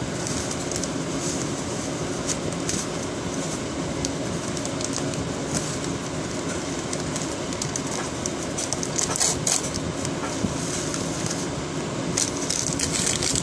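Steady mechanical hum with scattered light clicks and rustles, a little busier near the end.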